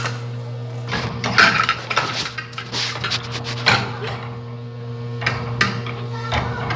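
A dog's food plate clattering and scraping as a shih tzu shoves it around, in irregular knocks and scrapes over a steady low hum.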